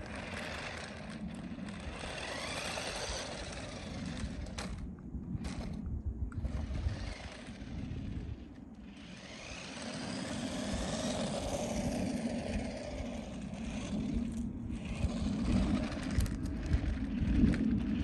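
Rhybor remote-control car driving over wet asphalt: its electric motor whines, rising and falling in pitch with speed, over the hiss of its tyres. It fades as the car drives off and grows louder near the end as it comes back.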